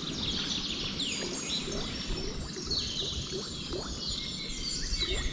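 Birds chirping, a string of short falling high calls one after another, over a faint steady background.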